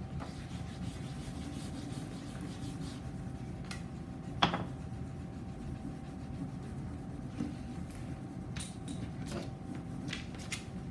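Wax crayon rubbing back and forth on paper taped to a whiteboard as a stripe of a rainbow is coloured in, with a light knock about four and a half seconds in.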